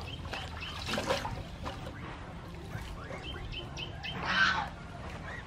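Water splashing and dripping in an aluminium basin as water spinach is swished and washed by hand, loudest about four seconds in when a bunch is lifted out. Birds call in short high notes.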